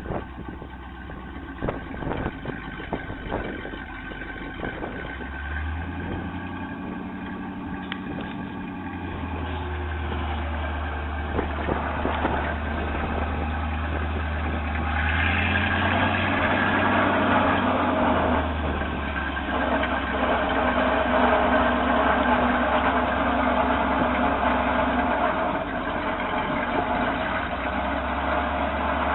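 The Ford 330 cubic-inch V8 gas engine of a 1966 Ford F600 grain truck running, its speed stepping up and down a few times. Several sharp knocks come in the first few seconds, and from about halfway the engine runs louder and busier.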